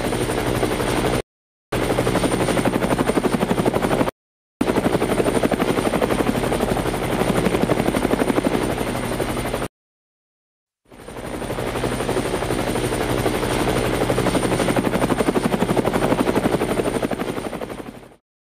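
Small electric motor spinning the propeller of a homemade plastic-bottle toy helicopter: a fast, even chopping buzz with a thin high whine. It cuts off abruptly twice for half a second. After a longer gap it spins up gradually, and it winds down near the end.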